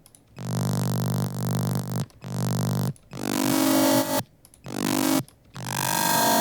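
Distorted synth bass playing a run of held notes with short gaps between them, buzzy and rich in high harmonics from amp distortion and bit-reduction. It sounds pretty intense.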